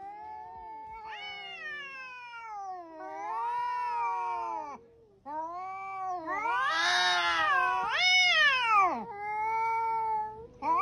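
Cat yowling: a series of long, wavering caterwauls that rise and fall in pitch, with a short break about five seconds in and the loudest call about seven seconds in. The warning yowl of a cat squaring off against another cat.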